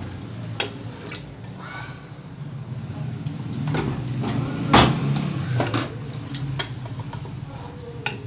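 Wooden spoon stirring and scraping beef masala in an aluminium pressure-cooker pot as it is fried (bhuna), with irregular knocks of the spoon against the pot, the loudest about halfway through, over a steady low hum.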